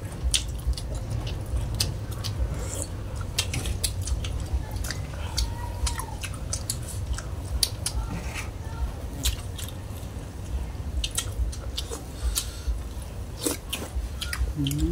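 Several people chewing and smacking their lips as they eat bamboo-shoot curry with pork: many short, wet mouth clicks at an irregular pace, over a steady low rumble.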